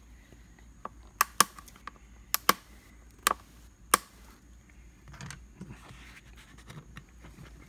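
Sharp plastic clicks, about six loud ones in the first four seconds, as a plastic trim-removal tool pries at the edge of a stock car door speaker that is stuck in its plastic housing and slips off it. Softer scraping and rubbing follow as the speaker's edge is worked by hand.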